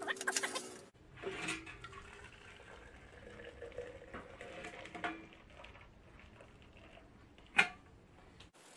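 Hot water poured from an aluminium kettle into a clear plastic wide-mouth bottle, a steady trickling fill. In the first second a tea-bag wrapper is torn open. One sharp knock sounds about seven and a half seconds in.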